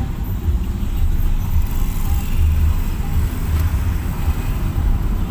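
Road noise heard from inside a moving car: a steady low rumble of engine and tyres.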